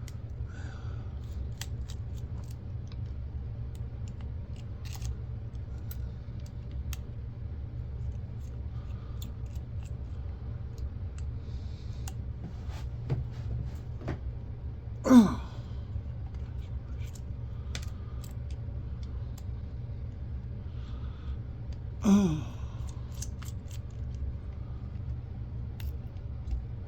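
Light clicks and taps of small parts and hand tools being handled while a camcorder is dismantled, over a steady low hum. A man lets out two short sighs or groans, each falling in pitch, about midway and again a few seconds later; the first is the loudest sound.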